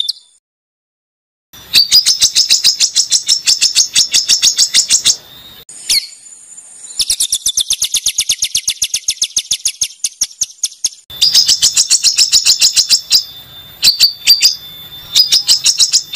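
Songbird singing harsh, rapid-fire 'tembakan' phrases: fast strings of sharp, high repeated notes in several bursts a few seconds long, broken by short pauses, with a brief whistle about six seconds in.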